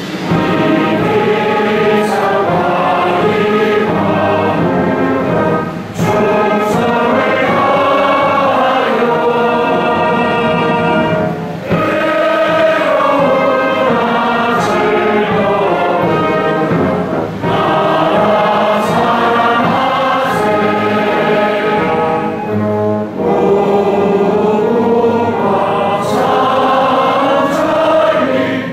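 Many voices singing a song together in chorus, led by a male voice through the microphone, with short breaks between phrases.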